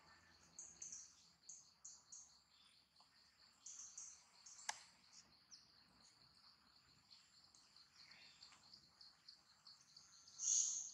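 Faint ambience of insects chirring steadily and high, with scattered short chirps, a sharp click about halfway through and a louder high chirp near the end.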